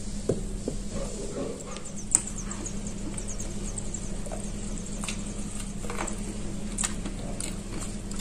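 Chunks of gray clay and multani mitti soaking in water in a plastic tub, crackling with scattered small pops and clicks, one sharper click about two seconds in, over a steady low electrical hum.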